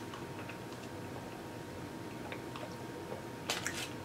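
A person eating barbecue ribs: faint mouth and eating clicks, then a quick run of sharper smacking clicks about three and a half seconds in.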